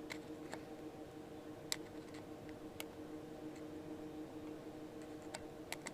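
Faint, scattered metal clicks and light scrapes as a pointed tool pries at the keeper ring inside a truck's locking hub, over a steady faint hum.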